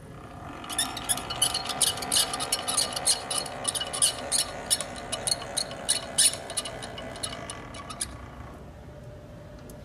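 Dalton universal mixer-stirrer running, with a steady motor hum and rapid, irregular clicking and squeaking over it. The clicking stops about eight seconds in, leaving only the hum.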